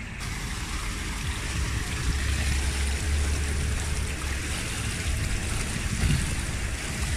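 Pool water rushing and trickling steadily at the edge of an outdoor swimming pool, with a low rumble underneath.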